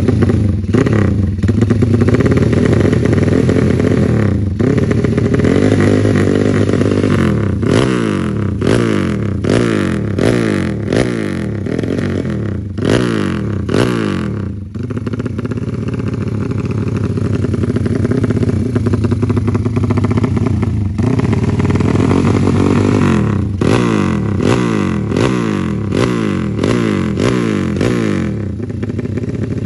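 Honda Tiger motorcycle's single-cylinder four-stroke engine running through an aftermarket muffler, alternately idling and being revved in quick repeated throttle blips.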